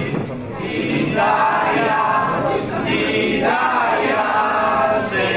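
A group of people singing together in chorus, with long held notes.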